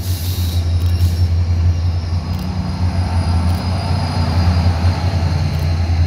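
A SunRail bi-level commuter train rolling past over a street grade crossing, with the diesel locomotive pushing at the rear. Throughout there is a steady low drone with rumbling rail noise.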